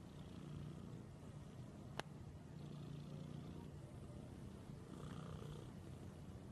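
White cat purring steadily while it is stroked, the purr swelling in stretches every couple of seconds with its breathing. A single sharp click about two seconds in.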